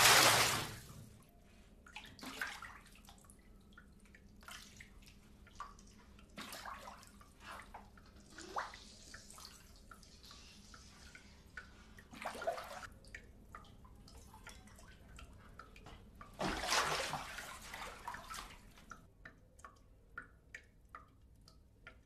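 A rush of water that cuts off about a second in, then scattered drips and small splashes, with another short rush of water lasting over a second about three-quarters of the way through.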